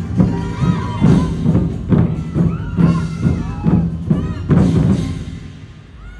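Drums beating a steady rhythm, about two strokes a second, with high rising-and-falling calls over them; the drumming dies away about five seconds in.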